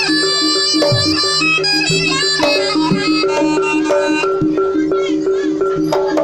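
East Javanese jaranan ensemble music: a reedy shawm-like trumpet plays a melody over a fast, steady two-note gong pulse, with scattered drum strokes.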